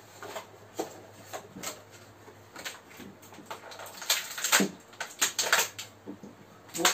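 Clear plastic blister tray of an action-figure package crackling and clicking as it is handled and pulled out of its cardboard box. The irregular snaps grow louder about four seconds in.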